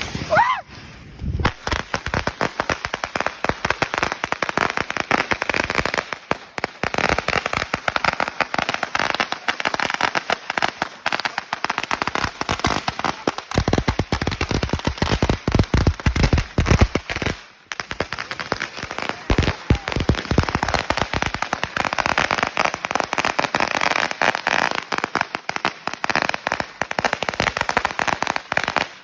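A 16,000-shot firecracker roll going off: a continuous, rapid crackle of bangs that starts about a second and a half in and runs on, with a brief break a little past the middle.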